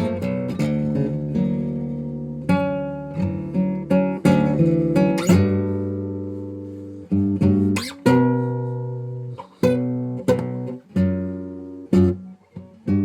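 Background acoustic guitar music: plucked notes and chords, each ringing and fading before the next.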